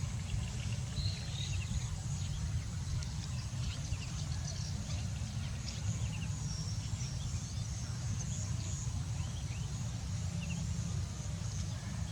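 Outdoor rural ambience: a steady low rumble with faint, short high chirps scattered throughout.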